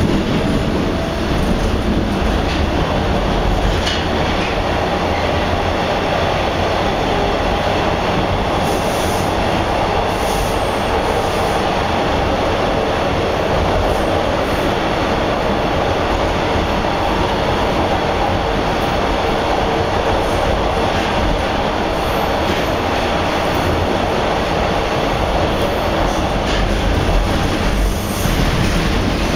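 Inside a TTC Bombardier T1 subway car running through a tunnel: a steady rumble and rush of wheels on rail, with a few faint clicks.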